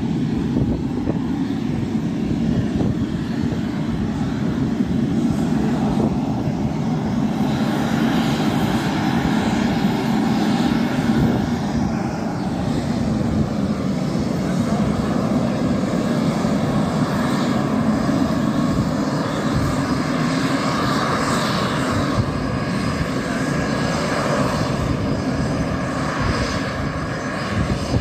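Saab JAS 39 Gripen fighter's jet engine running at taxi power: a steady rumble with a hissing whine that grows stronger about eight seconds in.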